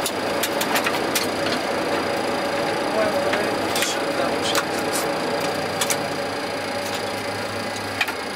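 Boeing 737 cockpit noise: a steady hum and hiss of the engines and air systems, with a thin steady whine, broken by scattered sharp clicks.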